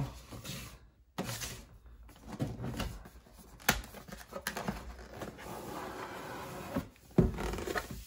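Stiff cardboard box being opened by hand: rustling and scraping as the snug lid is worked off, with a few light taps, then a dull thump near the end as a piece of the box is set down.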